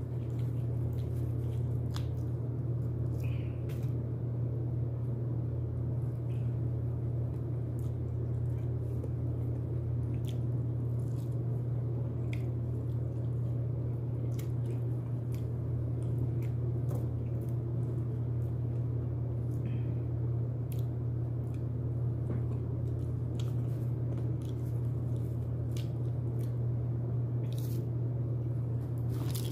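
A person eating broasted fried chicken: scattered short crunches, squishy bites and mouth clicks of biting and chewing, over a steady low hum.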